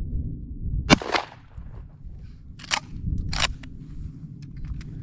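A 12-gauge Benelli Supernova pump shotgun fires one Lyman slug about a second in. Two sharp clacks follow, a little over half a second apart, as the pump action is cycled. A few light clicks come near the end.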